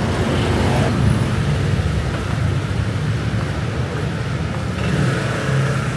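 Steady road traffic noise from dense city traffic, a low rumble of car engines and tyres running.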